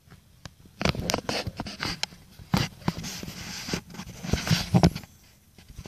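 Close rustling, scraping and irregular knocks of a phone being handled and moved, starting about a second in and stopping near the end.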